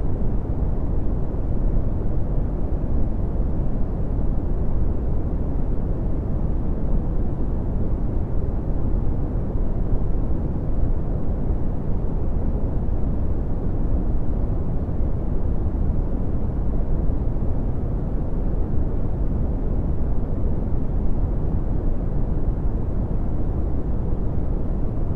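Red (Brownian) noise: a steady, deep rumbling hiss, strongest in the low end and dropping off toward the highs, with no change throughout.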